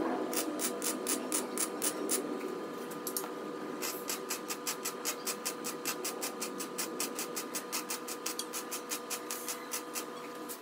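Electric arc welding on a steel box-section frame: a crackling arc pulsing about five times a second, pausing briefly about three seconds in, over a steady hum.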